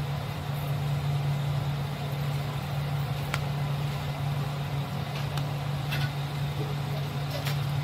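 Steady low mechanical hum, with a few light clicks and scrapes of a plastic spoon against a ceramic bowl as chopped vegetables are stirred into mayonnaise.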